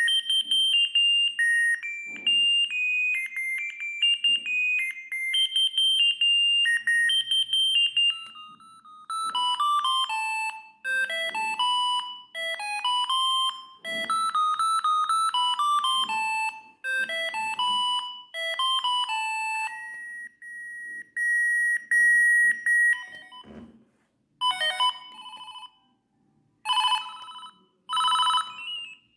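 Siemens S45i mobile phone playing its built-in ringtones one after another, as beeping electronic melodies. A new tune starts about nine seconds in, and near the end short repeated ring bursts follow.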